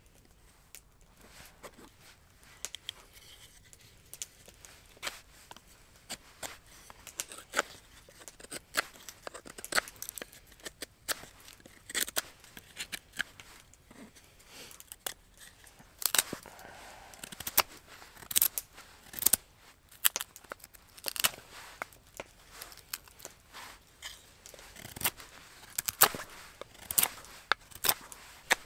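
Knife whittling a piece of split wood: an irregular run of short scraping cuts, a few a second, with sharper snaps now and then.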